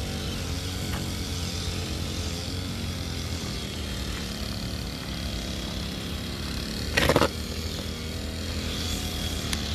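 Motorised grass cutter's small engine running steadily with a low hum. A short, loud knock cuts through it about seven seconds in.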